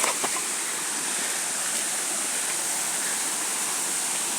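Waterfall about 30 metres high, its falling water making a steady, even rushing noise.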